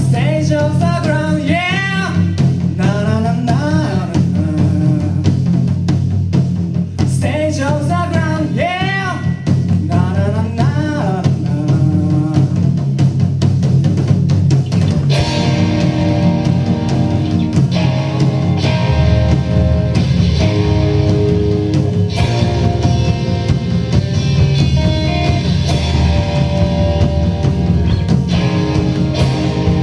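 Live rock band playing: drum kit, electric guitar and bass under a wavering lead melody. The sound fills out and brightens about halfway through.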